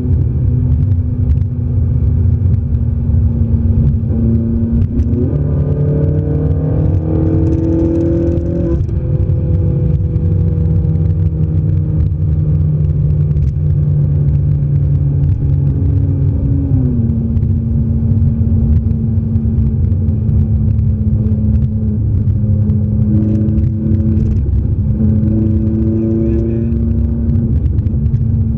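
Ferrari 458 Italia's 4.5-litre V8 heard from inside the cabin at highway speed, over a deep steady rumble of engine and road. The engine note rises as the car accelerates about five seconds in, drops a little about halfway through, and swells again briefly near the end.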